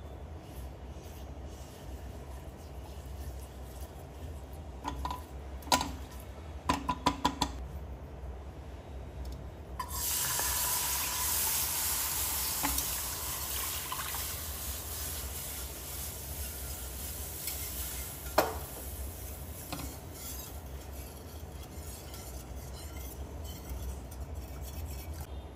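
A silicone spatula stirring a butter-and-flour roux in a stainless-steel pan, with a quick run of sharp taps against the pan. About ten seconds in, milk poured into the hot pan starts a sudden loud hiss that slowly fades as it is worked in with a wire whisk, with one more sharp knock on the pan later on. A low steady hum sits underneath.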